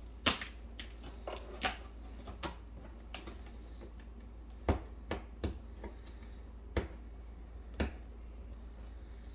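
Fingernails picking and scratching at packing tape on a cardboard box: about ten irregular sharp clicks and taps, the loudest just after the start and again about halfway through.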